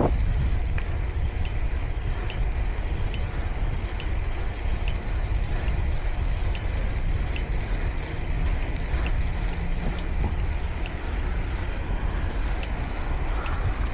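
Wind buffeting the microphone of a camera riding on a moving bicycle, a steady low rumble with tyre noise on asphalt. A light tick repeats about every 0.8 seconds.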